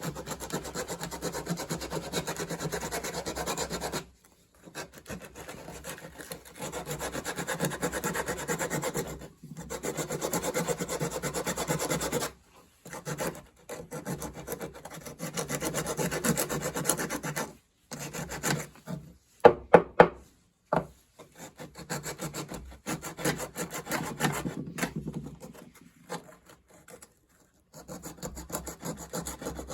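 Sandpaper rubbed by hand over the pine wood body of a Pinewood Derby car, smoothing a crease, in runs of back-and-forth strokes a few seconds long with short pauses between them. A few sharp taps come about twenty seconds in.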